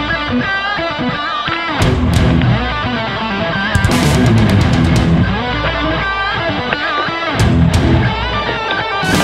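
Rock music with electric guitar lead lines over a steady bass and drum backing.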